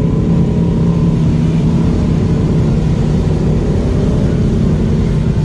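Off-road vehicle engine running steadily, heard from on board, a constant low drone with no revving.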